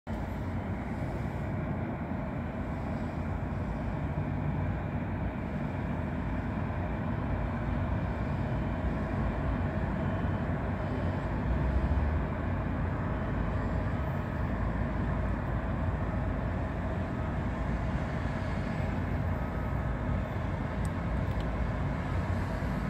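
Distant jet engines of a taxiing Airbus A330-300 running at idle: a steady low rumble with a faint high whine, swelling briefly about halfway through.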